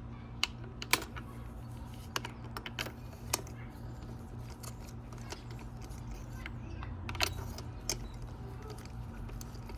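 Irregular light clicks and taps of hand tools and small metal parts being handled while working on a dirt bike's engine, over a steady low hum.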